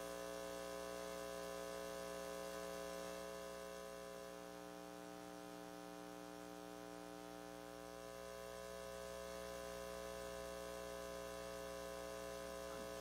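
Steady electrical mains hum from the sound system, made of several held tones over a faint hiss. It dips slightly in level for a few seconds in the middle.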